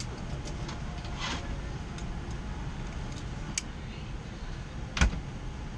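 Steady low cabin rumble inside a Boeing 787-9, with a few light clicks and one sharper knock about five seconds in.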